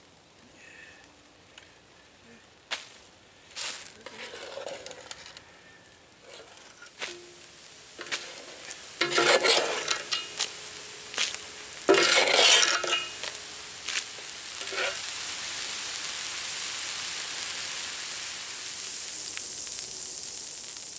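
Water poured from a metal pot into a hot steel disc-blade fryer over a wood fire, hissing and sizzling loudly in two bursts, about nine and twelve seconds in, as it hits the hot metal, then settling into a steady sizzle as it steams off. A couple of metal clinks come about three seconds in.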